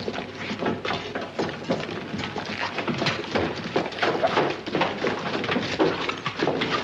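Horse walking on a barn floor: irregular hoof knocks and thuds several times a second, mixed with the horse's heavy breathing.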